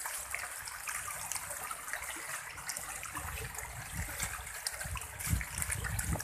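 Water splashing and churning as a densely stocked pond of catfish thrashes at the surface, feeding on scattered pellets, with many small crackling splashes.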